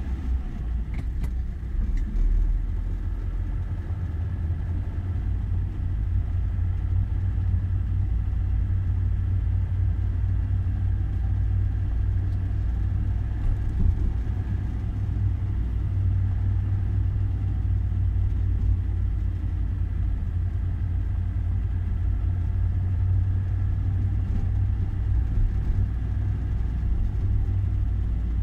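Steady low engine and road rumble inside a moving car's cabin.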